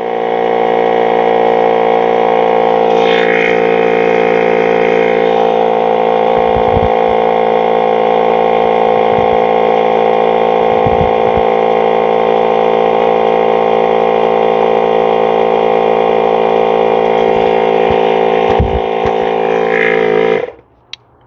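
Electric air compressor running steadily, inflating a flat ATV tire, then shutting off suddenly near the end. A few low thumps are heard while it runs.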